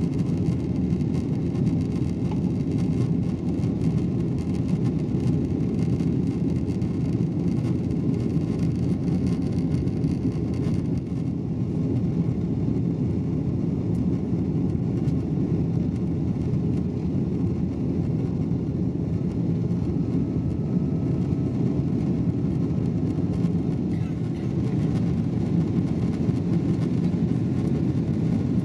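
Steady cabin noise inside a Boeing 777-200ER airliner in flight: an even, low rumble of engines and airflow at the rear of the cabin.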